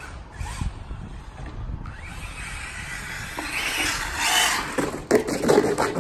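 Electric Arrma Typhon RC car driving across tarmac, its tyre and drivetrain noise growing louder as it comes closer, with a few sharp knocks and clatter near the end.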